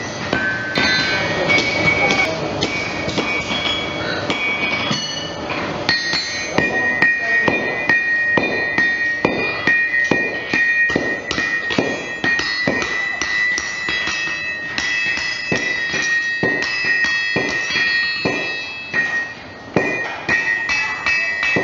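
Hand hammers striking hot steel horseshoe stock on anvils: a fast, uneven run of blows, each with a high metallic ring that carries on between strikes.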